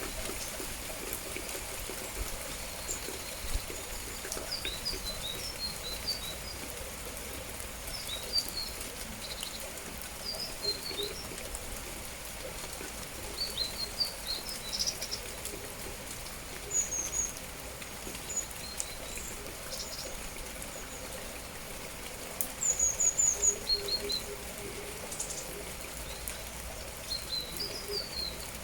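Small songbirds chirping in short, quick high phrases over the steady hiss of falling rain. The chirps come in scattered clusters, loudest about two-thirds of the way through.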